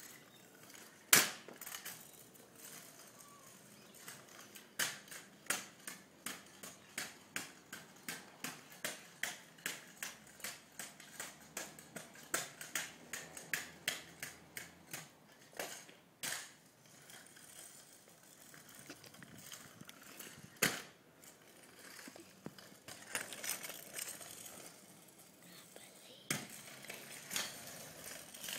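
MGP stunt scooter rolling and clattering on rough concrete. Through the middle there is a regular run of sharp clicks, about two a second, and a few louder single clacks come between, the loudest about a second in.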